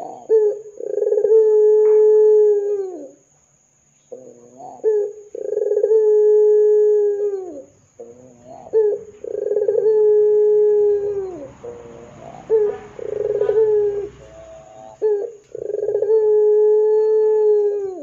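Barbary dove (puter) cooing: a short note, then a long level coo that drops in pitch at its end, repeated about every four seconds, five times.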